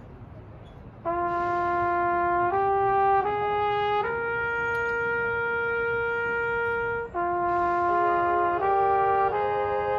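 Marching band brass playing a slow melody in long held notes: the line enters suddenly about a second in, steps through a few notes to one long held note, breaks off briefly about seven seconds in, then starts a second phrase in which a second voice joins in harmony.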